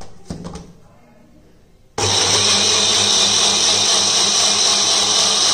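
A few clicks as the small bullet-style mixer-grinder jar is pressed onto its base, then about two seconds in the motor starts suddenly and runs steadily at full speed, grinding soaked ragi dosa batter so the coarse wheat rava in it turns smooth.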